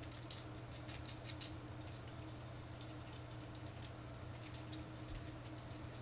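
Dry barbecue rub being shaken from a shaker bottle onto racks of spare ribs: a quick, uneven patter of granules. A steady low hum runs underneath.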